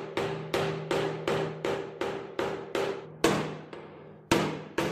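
Small ball-peen hammer striking the steel tang end on top of a stacked leather-washer handle, peening it over, in quick light blows of about two or three a second with one longer pause past the middle. Each blow is a sharp metallic tap with a short ring.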